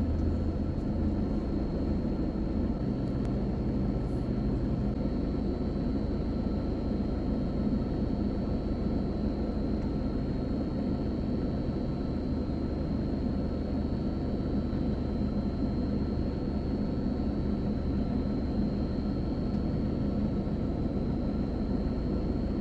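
A heavy vehicle's engine running steadily, with a faint, steady high-pitched whine over it.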